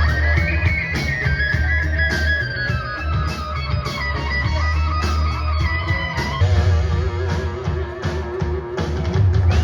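A rock band plays an instrumental passage. An electric guitar carries a sustained lead melody that steps down in pitch with bends, over bass and a drum kit keeping a steady beat with cymbals.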